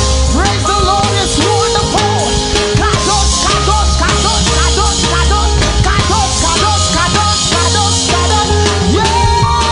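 Loud live praise-break band music, with driving drums, a heavy bass line, and gliding melodic lines over them.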